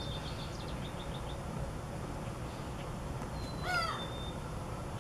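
Outdoor birdsong: a run of short high chirps in the first second or so, then about three-quarters of the way through one short, louder bird call, over a steady low background hum.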